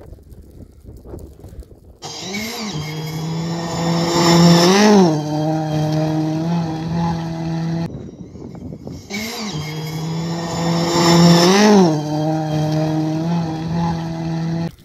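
Rally car engine at high, steady revs, with a couple of brief rises and falls in pitch. After about two seconds of faint wind, the same few seconds of engine sound play twice, with a short break between.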